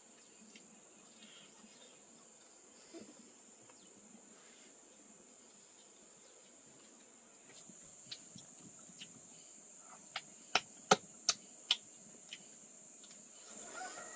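Insects droning with a steady high-pitched tone. About ten seconds in, five sharp knocks come in quick succession, about two and a half a second.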